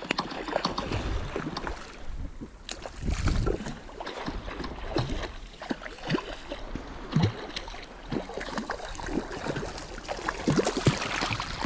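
Shallow water splashing and sloshing in short, irregular bursts, with wind rumbling on the microphone.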